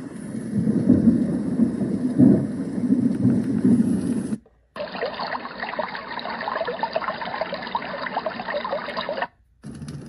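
A Dream Egg white noise machine's speaker playing its rain-with-thunder track: steady rain hiss under a heavy, uneven low rumble of thunder. After about four seconds it cuts out briefly as the next track is selected, and a brighter hiss dotted with many small pops plays. It cuts out again just before the end.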